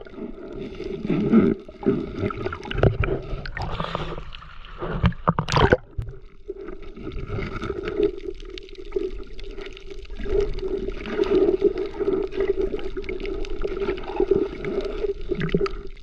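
Sea water sloshing and gurgling around a small boat in a strong current, rising and falling with the waves, with one sharp hit about five and a half seconds in.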